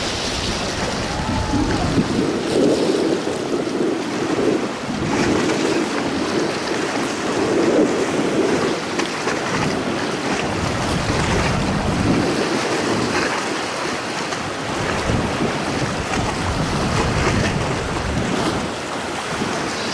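Wind rushing over the microphone in uneven gusts, with sea waves washing, heard aboard a small passenger ship on the Baltic.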